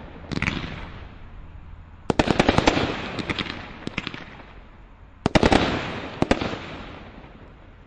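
Brothers Pyrotechnics 'The Judge' Cat 3 combination Roman candle firing: volleys of sharp bangs and pops as its shots burst, a short group at the start, a dense run about two seconds in, more shots around four seconds and another volley a little after five seconds, each trailing off in a hiss.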